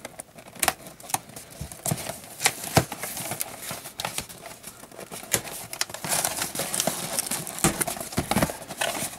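Fingers picking at and tearing the packing tape on a cardboard shipping box and pulling at its flaps: a run of sharp clicks and scratches on the cardboard, with a longer tearing, scraping rustle in the later seconds.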